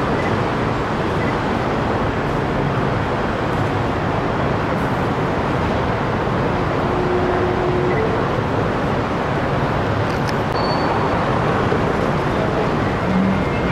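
Steady city traffic noise: cars driving through an intersection and a streetcar crossing on its tracks.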